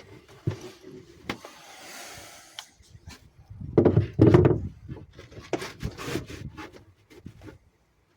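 Handling noises of workshop assembly: scattered knocks and clicks, a scraping rub about two seconds in, a louder rubbing clatter around the middle, then a quick run of knocks.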